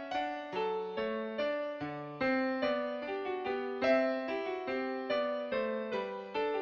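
Background music: piano melody of plucked-sounding notes struck a few times a second, each fading quickly.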